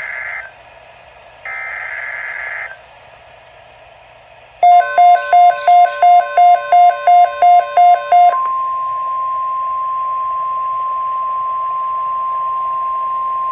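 NOAA Weather Radio alert: the last two screeching SAME header data bursts, then a short gap, then the steady 1050 Hz warning alarm tone for about nine seconds. For its first few seconds a loud beeping, about three beeps a second, sounds over the tone. This marks the start of a new alert, a tornado watch.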